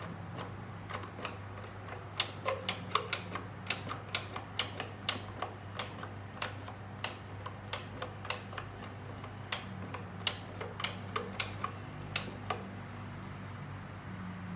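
Sharp mechanical clicks, irregular, about two or three a second, starting about two seconds in and stopping near the end, over a steady low hum.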